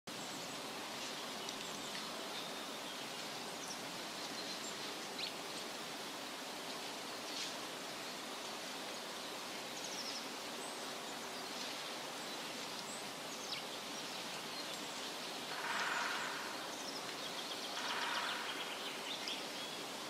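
Steady outdoor background noise with faint, short, high bird chirps scattered throughout, and two louder, rougher bird calls about three-quarters of the way through and again near the end.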